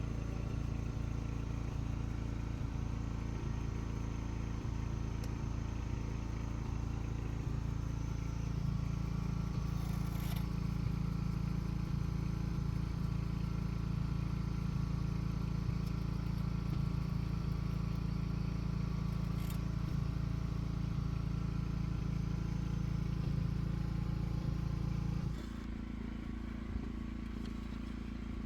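An engine running steadily with a low hum; its note gets heavier about eight seconds in and drops abruptly to a different, quieter pitch a few seconds before the end.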